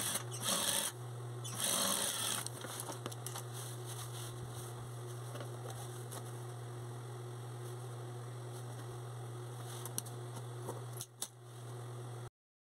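Sewing machine running as patchwork fabric is fed under the needle, with a steady low hum throughout. Two louder bursts of rustling cloth come in the first couple of seconds, and the sound cuts off shortly before the end.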